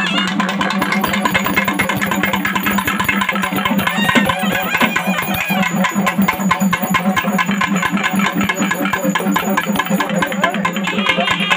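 Loud music with a rapid, even beat of strokes over a steady low drone.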